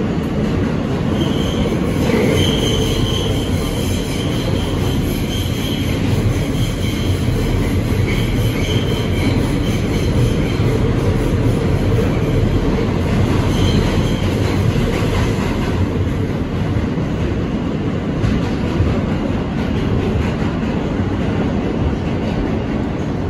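R160 subway car running at speed through a tunnel, heard from inside the car: a loud, steady rumble of wheels on rail, with a faint high squeal that comes and goes over the first half.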